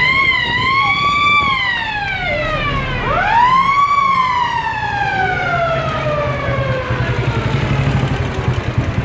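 Mechanical siren wailing: its pitch wavers up and down and sags away, then winds up again about three seconds in and slowly falls as it coasts down. Underneath, vintage military vehicle engines run, with a pulsing motorcycle engine near the end.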